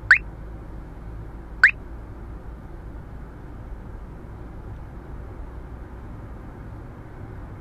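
Uniden R3 radar detector giving two short rising alert chirps about a second and a half apart, warning of Ka-band radar at 34.663 GHz. After them only the steady low road noise of the car cabin remains.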